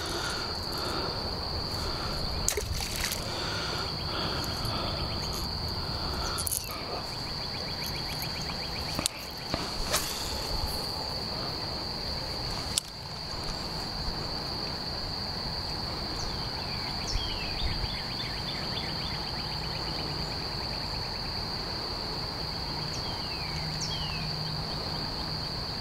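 Insects droning steadily in one continuous high-pitched note, with a few sharp clicks and knocks along the way.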